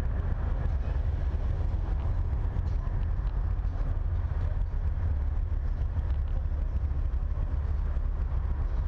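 Semi truck's diesel engine running steadily, a deep, even rumble with no change in pitch.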